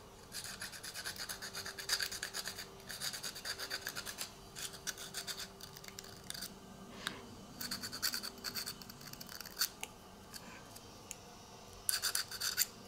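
Bead reamer twisted back and forth in the hole of an acrylic keychain: runs of quick scraping strokes with short pauses, as it clears vinyl and dried decoupage out of the hole. The last run, near the end, is the loudest.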